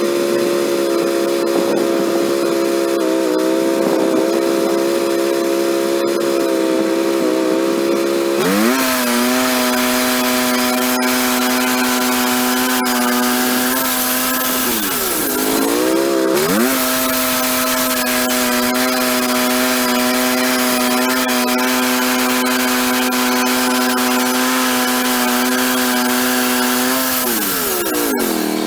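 Engine running steadily under power. About eight seconds in its note drops abruptly to a lower steady pitch, sags and recovers about halfway through, and falls again near the end.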